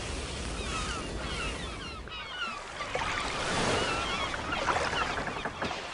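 Sea surf washing, swelling louder around the middle, with many short high chirps over it throughout.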